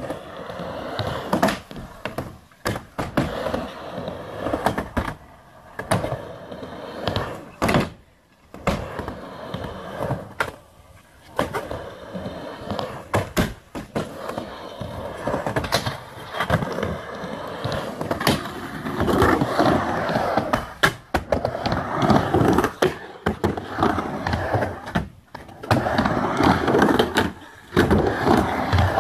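Skateboard rolling around a skate bowl: the wheels rumble along the ramp surface, louder and softer as she carves, with many sharp clacks and knocks from the board and trucks.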